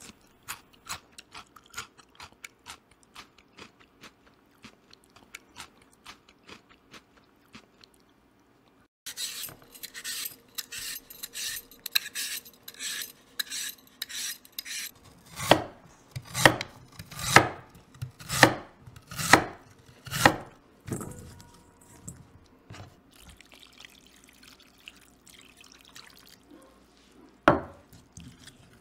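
Lotus root being prepared by hand. First come light taps and clicks, then a vegetable peeler scraping the skin off in quick strokes. Then comes a run of heavy knife strokes through the root onto a cutting board, about one a second, and one last knock near the end.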